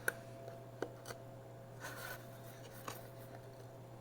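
Faint handling noises: a sharp click at the start, a few light ticks and a short soft rub, over a steady low electrical hum.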